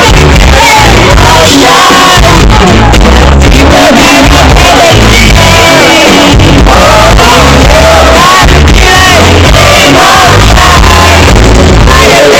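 Live pop performance: a female lead singer singing over a band with heavy bass, recorded at full level so the sound is loud and dense.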